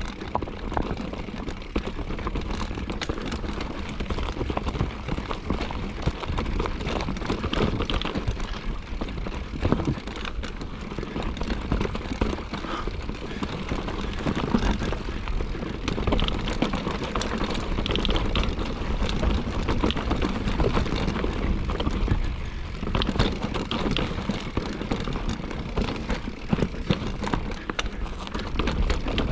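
Mountain bike riding over a rocky trail: a steady run of knocks and rattles as the tyres and bike jolt over rocks, under a constant low rumble of wind on the microphone.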